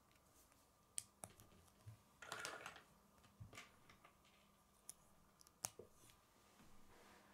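Plastic K'nex rods and connectors clicking as they are snapped together and handled: a scattering of quiet, sharp clicks, with a short rustle of pieces a little over two seconds in.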